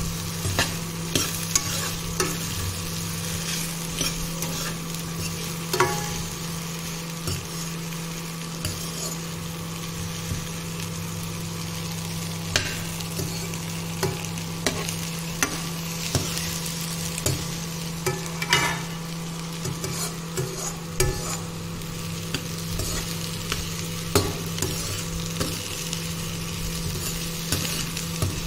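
Chopped okra frying in a nonstick kadhai, sizzling as a steel spatula stirs and scrapes it, with frequent irregular clicks of the spatula against the pan. A steady low hum runs underneath.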